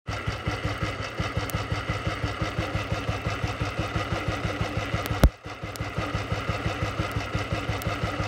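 Royal Enfield Bullet 350 cast-iron single-cylinder engine idling with an even thump, about six beats a second. A single sharp knock a little after five seconds in.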